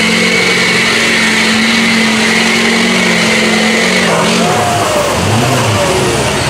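Lifted mud truck's engine held at high, steady revs at full throttle through a deep mud pit. The revs drop about four seconds in, and voices shout over it near the end.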